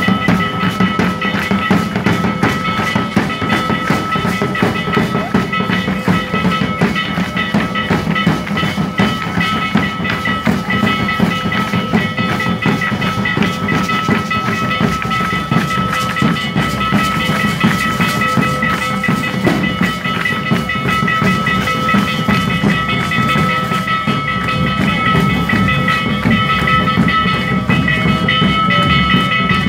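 Dance troupe music: large bass drums beating and hand rattles shaking in a dense, continuous rhythm, with a steady high tone held over it.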